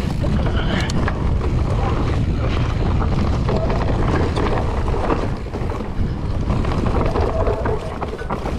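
Wind buffeting the microphone while a mountain bike is ridden along a dirt singletrack, with the steady rumble of tyres on the trail and scattered clicks and knocks from the bike over bumps.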